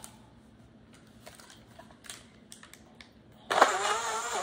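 A few faint clicks in near quiet, then about three and a half seconds in a Tongjing USB-rechargeable portable blender starts up suddenly and runs loudly, with sharp knocks as its six blades chop banana and blueberries in water.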